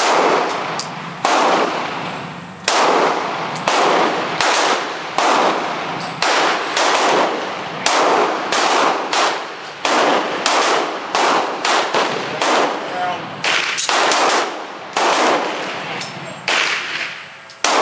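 A long string of gunshots, about two dozen in a row at one to two a second, each sharp crack trailing off in an echo.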